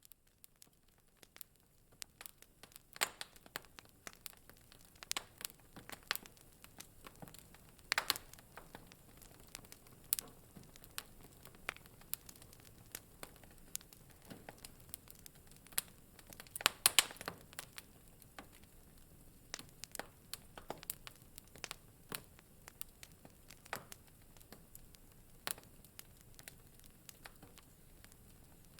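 Wood fire in a fireplace crackling: irregular sharp pops and snaps over a faint steady hiss, with a quick cluster of louder pops about 17 seconds in.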